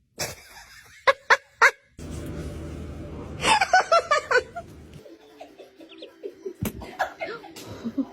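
People laughing in short bursts across a few quickly cut clips, with three short sharp sounds about a second in.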